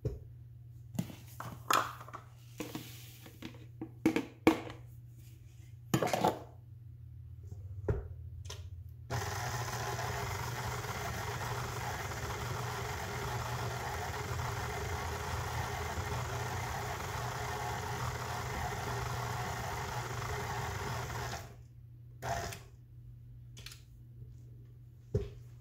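Several sharp knocks and clunks, then a KitchenAid Classic tilt-head stand mixer with its paddle attachment runs steadily for about twelve seconds, mixing flour and oats into oatmeal cookie dough, and switches off abruptly, followed by a couple more knocks.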